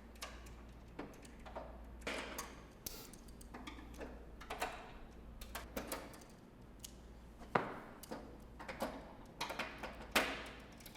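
Irregular clicks, taps and short scrapes of hand tools and bolts as the bolts holding a spin bike's plastic drive-side cover are undone.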